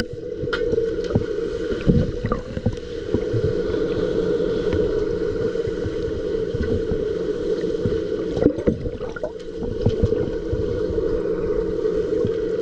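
Pool water churned by swimmers' fins and bubbles, heard underwater: a steady muffled rushing wash with a steady hum underneath and a few knocks, the loudest about 2 seconds and 8 and a half seconds in.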